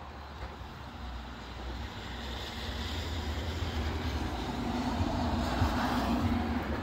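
Rushing wind and rain of a gusty rain shower, swelling louder over the first few seconds, with a low hum joining about four and a half seconds in.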